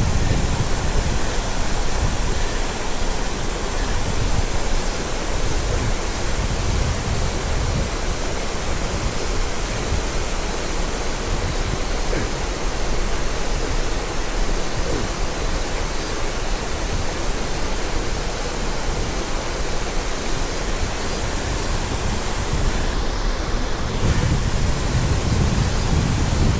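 Steady rush of a mountain stream's flowing water, with a low rumble that grows stronger near the end.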